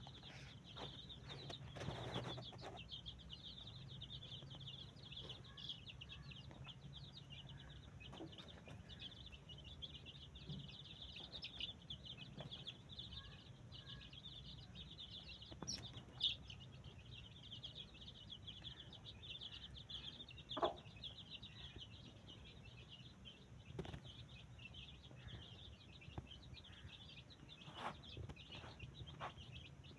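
Many small birds chirping continuously in a dense, faint chorus, with a few short knocks now and then.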